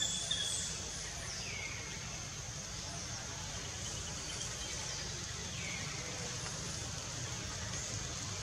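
Outdoor ambience: a steady high-pitched insect drone over a low rumble, with two short falling chirps, one about a second in and another near the end.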